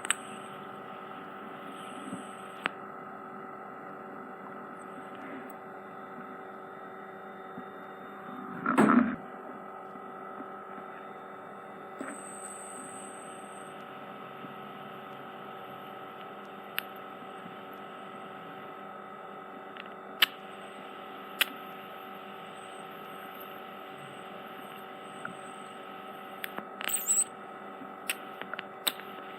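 Steady electrical hum of ear-cleaning equipment running during earwax removal, with a few sharp clicks and small crackles. A loud, short scratchy crackle comes about nine seconds in.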